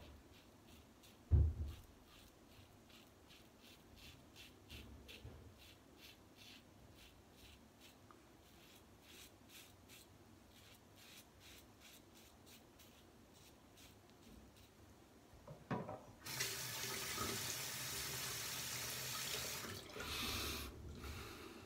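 Gillette Fatboy double-edge safety razor with a Treet blade scraping through lathered stubble in many short, faint strokes, with a single low thump about a second and a half in. Near the end a tap runs steadily into a sink for about four seconds, then briefly again.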